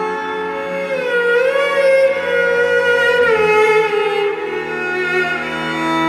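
Sarello, a bowed string instrument with a half-size cello body and a sarangi-style neck, played with the bow over a sustained looped drone. A sliding melody comes in about a second in, bends upward, then glides down past the middle and settles onto a lower note.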